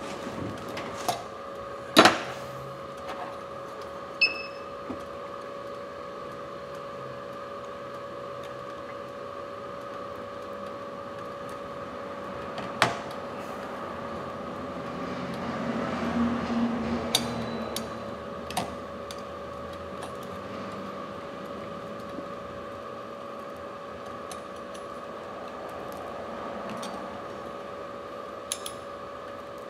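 A steady electrical hum from bench equipment, with scattered clicks and taps of tools and parts being handled on a workbench. There is a short high beep about four seconds in, and a stretch of rustling handling noise in the middle.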